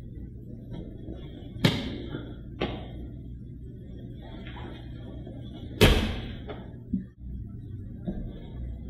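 Two loud thuds and a few lighter knocks of grapplers in gis rolling and landing on a foam mat, the first thud a little under two seconds in and the loudest about six seconds in.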